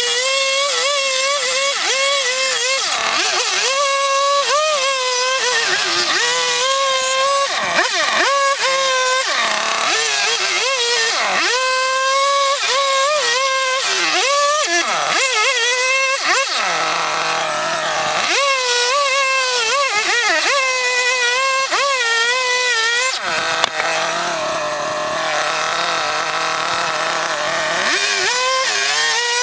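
Two-stroke chainsaw cutting into a log, its engine pitch dipping under load and rising again many times. About 23 seconds in it drops to idle for several seconds, then revs up again near the end.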